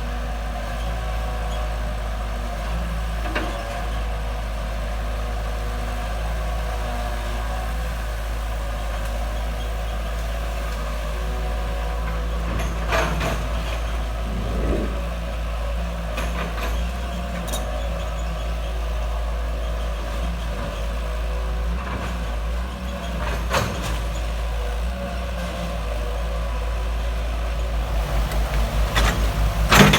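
Backhoe's diesel engine running steadily, with a few sharp metallic knocks along the way. Near the end it picks up a fast pulsing beat.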